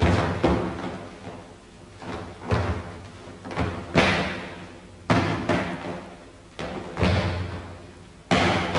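Sharp stamps and slaps at an irregular pace, about one a second, each dying away with an echo: a martial artist's feet striking the floor and hands slapping during a kung fu form.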